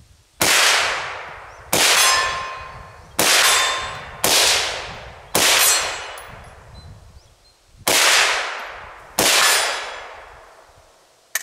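Seven single rifle shots from an AR-style rifle firing remanufactured .223 Remington 55-grain full metal jacket rounds, spaced unevenly, each ringing out into a long echo. A short sharp click comes near the end.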